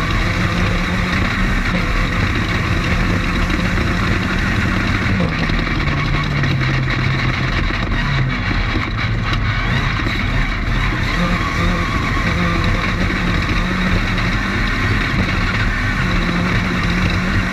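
Off-road race car running at speed, heard from on board: a loud, steady engine drone over heavy wind and terrain noise. The engine note drops about five seconds in and climbs back a few seconds later.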